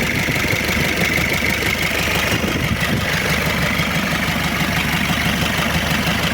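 Car diesel engine idling with a rough, loud rattle, a harsh noise the mechanic judges bad enough that the engine should go back to the seller.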